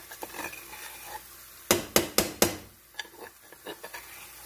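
Food sizzling softly in a frying pan, with four quick, sharp knocks about two seconds in as a utensil is tapped against the cookware.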